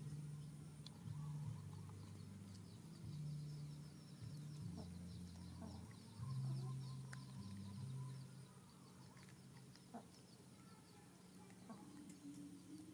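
Domestic chickens clucking faintly.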